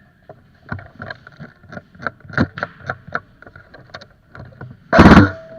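A run of irregular knocks and clicks from an airsoft player moving with gear, then a short, very loud burst just before the end.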